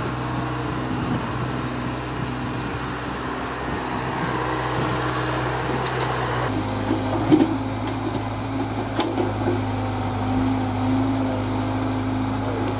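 Diesel engine of a Tata Hitachi EX70 mini excavator running steadily as it digs and swings buckets of mud, an even hum whose tone shifts abruptly about halfway through, with a couple of short knocks soon after.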